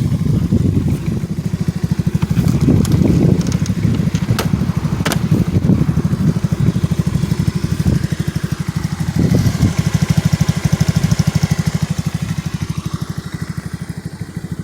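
Genuine Buddy 150 scooter's single-cylinder four-stroke engine running with an even firing beat. It swells louder about three seconds in and again around nine to ten seconds in.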